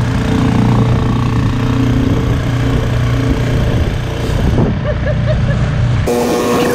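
Small outboard motor pushing an inflatable dinghy under way, running with a steady low drone. About six seconds in, the sound changes abruptly to a clearer, higher-pitched hum.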